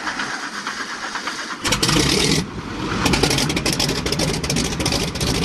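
An engine starts about a second and a half in, then runs with a loud low rumble and a fast, uneven flutter.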